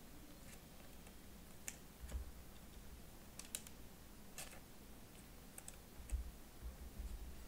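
A few faint, separate clicks and soft knocks spread over several seconds, in the manner of computer keys or a mouse being pressed now and then rather than steady typing.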